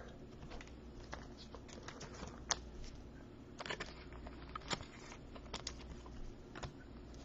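Faint, irregular light clicks and taps of football trading cards being handled and flipped through one by one.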